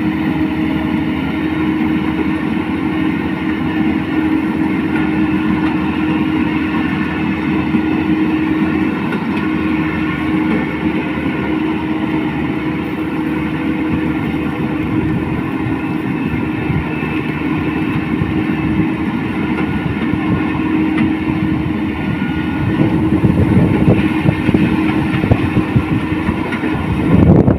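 Rice combine harvester running: a steady engine and machinery drone with a constant hum, growing louder and rougher about three-quarters of the way through.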